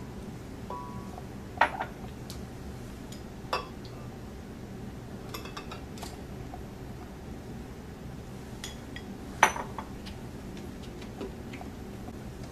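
Scattered sharp clinks and knocks of kitchenware against a glass blender jar as milk and scoops of ice cream go in, the loudest about nine seconds in, over low room tone.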